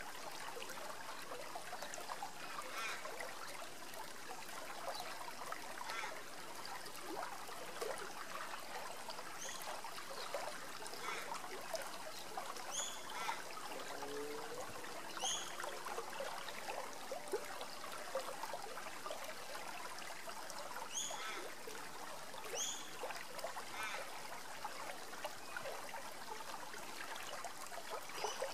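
Shallow river rippling over rocks: a steady babble of running water, with brief high chirps now and then.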